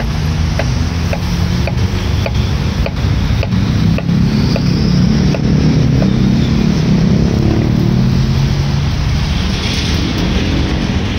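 Knife cutting through green mango onto a wooden cutting board in a steady rhythm of short ticks, about two cuts a second, stopping about six seconds in. A steady low rumble of background traffic noise runs underneath.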